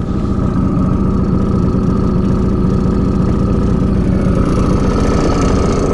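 Small outboard motor putting steadily almost at idle, pushing the boat slowly along while trolling.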